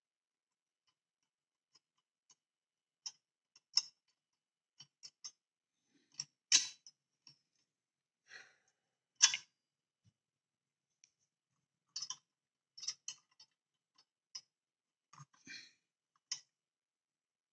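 Scattered light clicks and taps of small plastic model-kit parts and a small screwdriver being handled while a tie rod is fitted, with two louder clacks near the middle.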